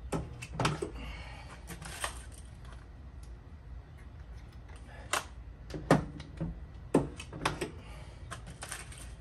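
Stud-welder dent puller working a dent out of a steel car door: an irregular series of sharp metallic clicks and knocks, about a dozen spread over the few seconds, as pins are welded to the panel and pulled out.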